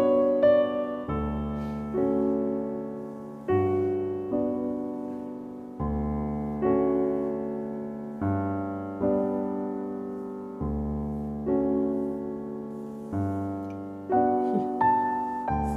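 Slow solo piano music, with chords and melody notes struck every second or two and left to ring out.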